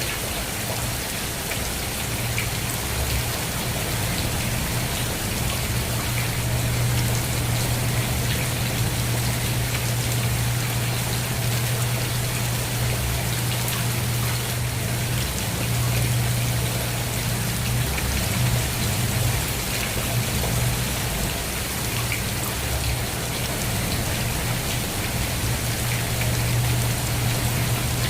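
Steady rain falling on a surface, with individual drops ticking through the patter over a steady low rumble.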